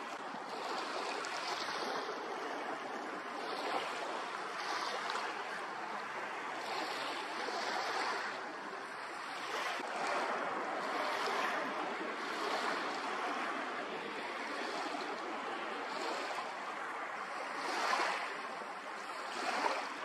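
Waves washing on open water: a steady rush of water noise that swells and eases every second or two, with two louder swells near the end.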